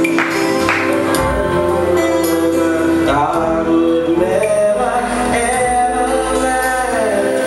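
Amplified music with a man singing into a microphone over the accompaniment.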